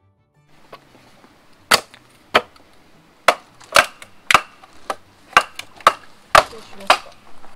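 A run of sharp wooden knocks, about nine loud ones over some five seconds, starting a little under two seconds in, as a bamboo pole is knocked and worked into place for a makeshift pot stand.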